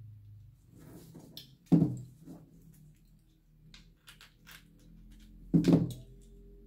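Shell-on seafood being cracked and picked apart by hand, with small crackling and clicking sounds and two louder knocks, about two seconds in and again near the end.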